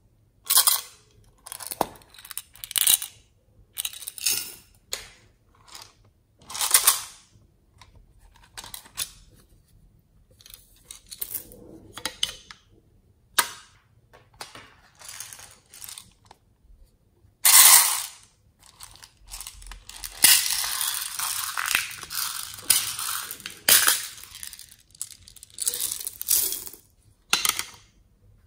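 Small tin and plastic containers of slime toppings being handled: a series of sharp clicks, taps and short rattles. About two-thirds of the way through comes a longer spell of small hard pieces such as beads and sequins rattling and spilling out.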